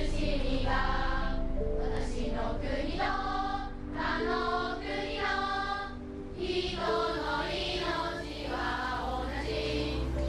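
A choir singing a slow song, with held instrumental tones underneath.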